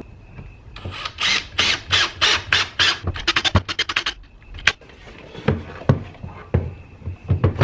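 Cordless drill driving a mounting screw into a wooden wall in a run of short pulses that quicken until about four seconds in. Then a sharp click and several dull knocks from the plastic controller housing being set against the wall.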